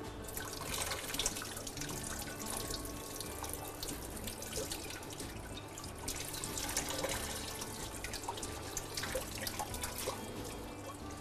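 Water splashing and running at a kitchen sink as fresh parsley is swished and rinsed by hand, with many small irregular splashes and drips.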